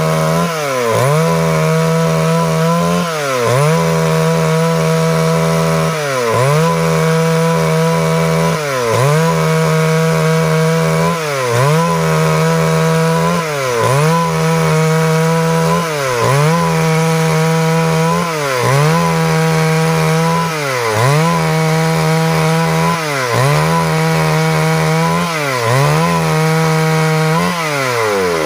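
Stihl MS382 two-stroke chainsaw running at high revs while cutting wood, its engine pitch dipping sharply and recovering about every two and a half seconds.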